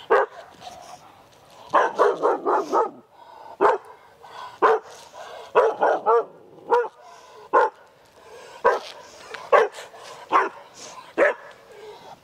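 A one-year-old Australian Shepherd barking repeatedly while lunging on a leash: a quick run of barks, then sharp single barks about once a second. This is fear-based reactive barking.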